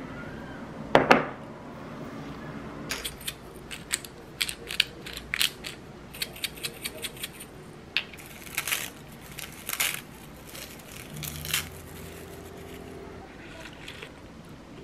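A pot set down on a table with a knock about a second in, then a run of short crackling and crunching sounds as dried seaweed sheets are crushed by hand and sprinkled, with pepper, over a pot of beef bone soup.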